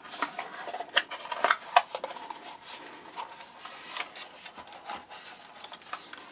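CPU retail packaging handled by hand: irregular rubbing and scraping with a scatter of sharp plastic clicks, busiest in the first two seconds, as the processor is worked out of its box.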